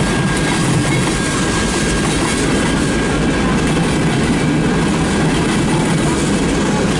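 Freight train cars rolling past close by, the wheels rumbling steadily on the rails with a faint high steady whine.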